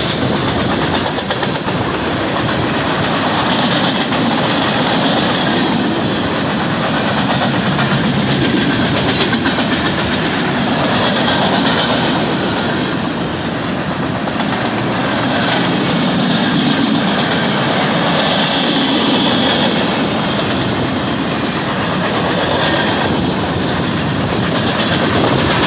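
Freight cars of a long train rolling past close by: a steady rumble with the rapid clickety-clack of steel wheels over the rail joints, easing slightly midway.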